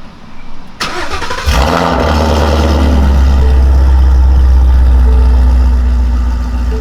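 Ford Mustang 5.0 V8 with American Racing headers and a Ghost Cam tune cranking on the starter and catching about a second and a half in. It flares up to a loud, steady high idle and eases down slightly near the end.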